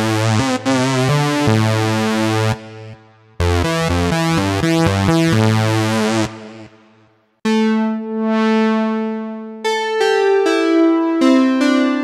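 Cherry Audio Chroma software synthesizer, an emulation of the Rhodes Chroma, playing polyphonic presets. Bright, buzzy chords come in two phrases; then, after a preset change about seven seconds in, a cleaner held chord with a sweeping brightness is followed by short repeated keyboard notes.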